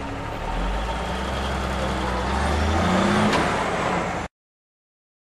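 LIAZ dump truck's diesel engine running as the truck pulls away, with tyre hiss on the wet road; the engine note rises briefly about three seconds in. The sound cuts off abruptly about four seconds in.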